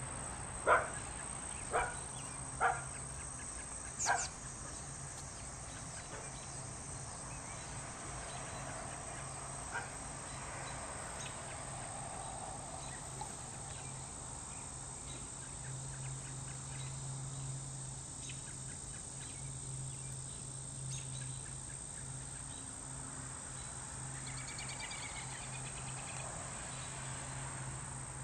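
A dog barks four times in the first few seconds. Then a steady high-pitched drone of insects carries on over a low steady hum.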